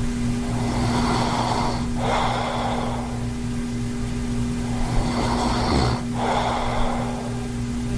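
A sleeping man with moderate sleep apnea snoring: two long, noisy breaths about four seconds apart, each cutting off sharply, over a steady low hum.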